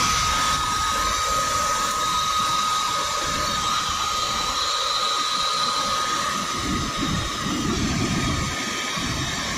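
Electric hair dryer blowing air into a burn barrel to fan the fire, running with a steady high whine over an uneven low rumble.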